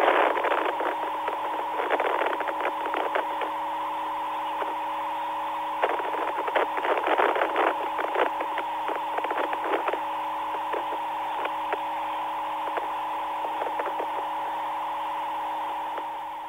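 Radio communications line noise from NASA's line after the Columbia space shuttle launch: a steady hum of several tones with crackling static and clicks, narrow like a phone line. The crackles come in thick clusters early on and again a few seconds later, then the line settles to a steadier tone and fades out at the end.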